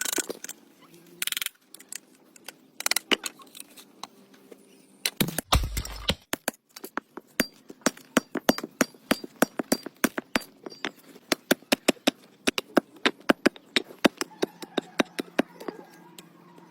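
A run of sharp taps or knocks, a few scattered ones at first, then a steady beat of about three to four a second that thins out near the end. A short, heavier thump comes about five seconds in.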